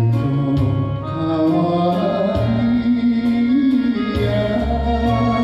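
Music: a karaoke accompaniment of a 1930s Japanese popular song, with a voice singing long, slightly wavering melody notes over a steady bass.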